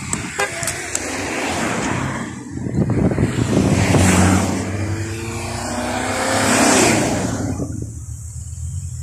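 Race team cars carrying bikes on roof racks drive past close by, one after another. Engine and tyre noise swells and fades, loudest about four seconds in and again near seven seconds.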